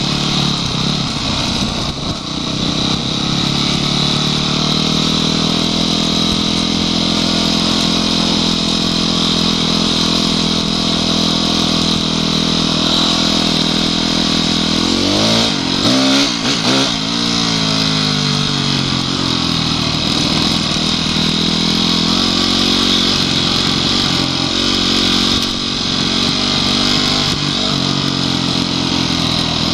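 Honda CRF250X single-cylinder four-stroke enduro motorcycle engine running steadily at part throttle, with the revs quickly rising and falling a few times about halfway through.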